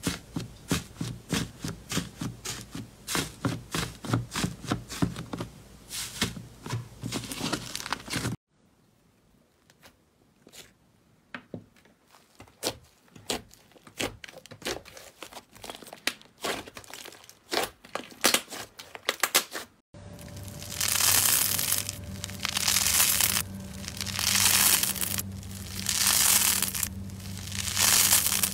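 Hands playing with slime. First come quick sticky pops and clicks as a finger pokes slime in a tray, then fainter scattered clicks as a soft white slime is kneaded. From about two-thirds of the way in comes louder crackling in swells about every second and a half, as a crunchy, honeycomb-textured slime is squeezed and pulled apart.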